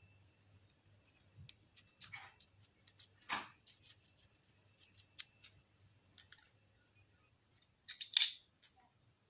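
Irregular small metallic clicks and clinks, as of tools and small metal parts being handled, with two louder clinks about six and eight seconds in.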